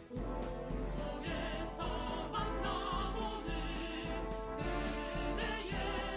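Background music with singing, dipping briefly right at the start before carrying on.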